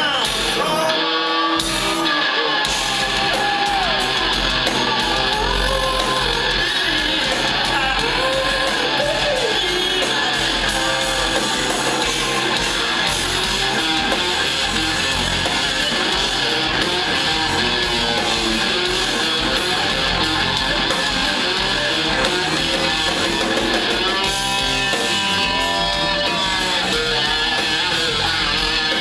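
Live rock band playing: a lap slide guitar gliding between notes over electric guitar, bass guitar and drums. The bass and drums come in fully about two and a half seconds in.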